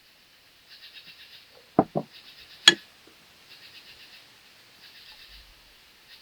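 Rhythmic chirping in short trains of rapid pulses, repeating about once a second, typical of insects, with two hard knocks a little under two seconds in and a louder sharp clack just after.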